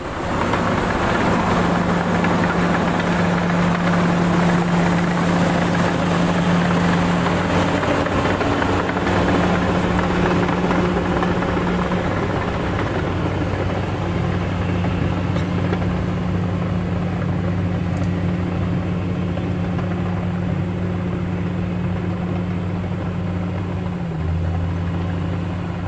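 Heavy diesel engines of a Kobelco hydraulic excavator and a crawler bulldozer running steadily close by, with a Hino 500 dump truck's engine among them. It is one continuous, loud engine drone whose note shifts slightly near the end.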